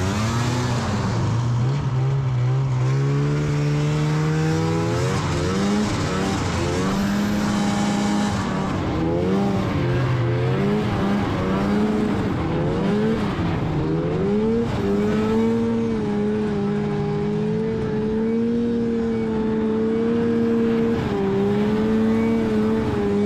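Polaris Indy 500 snowmobile's two-stroke engine running under way, its pitch climbing and dropping with the throttle through the first half, then holding fairly steady.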